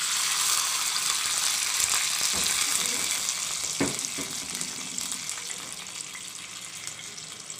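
Water poured into hot tempering oil with mustard seeds, green chillies and curry leaves: a loud sizzle that starts suddenly and slowly dies down. There are two light knocks in the middle.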